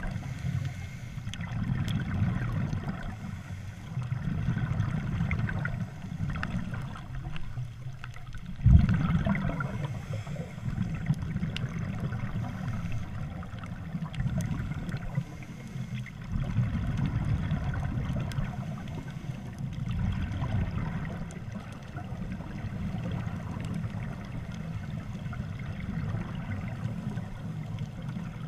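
Scuba diver's exhaled bubbles from a regulator underwater: a low bubbling rumble that swells and fades in bursts every few seconds. A single sharp thump about nine seconds in is the loudest sound.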